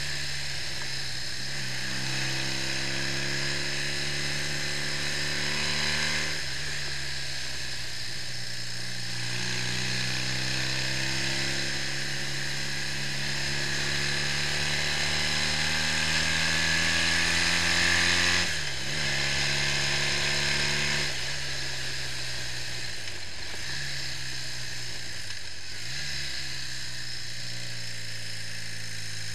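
BMW R65 air-cooled flat-twin motorcycle engine running on the road, its pitch stepping up and climbing as it pulls through the gears. The pitch drops sharply about two-thirds of the way through and dips briefly twice near the end, with a steady hiss over the whole.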